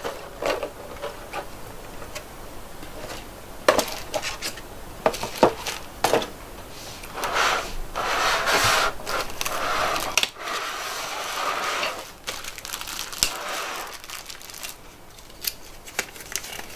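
Thin clear plastic blister packaging being pried open and handled: crinkling and crackling plastic, with several sharp clicks and snaps, then longer stretches of crinkling.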